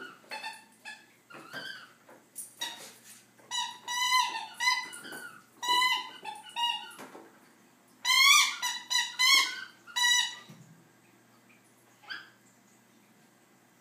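A dog chewing a squeaky toy, making it squeak over and over in quick runs, loudest in two bursts in the middle, then a single squeak near the end.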